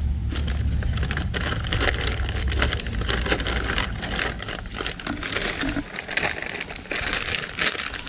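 Plastic packaging crinkling and rustling in a dense run of irregular crackles, over a low rumble during the first few seconds.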